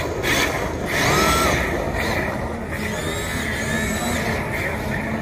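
Electric motors of RC drift cars whining, rising and falling in pitch several times as the cars speed up and ease off, over steady background noise.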